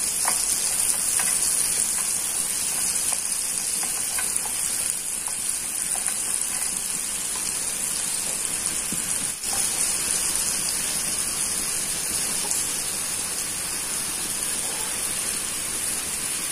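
Melted butter with whole green cardamom, mace and star anise sizzling in a pan: a steady frying hiss with a brief break about nine seconds in.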